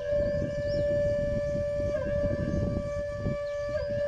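Background music: a flute-like wind instrument holds one long note that shifts slightly in pitch about every two seconds. It plays over a low rumbling noise, with faint high chirps above.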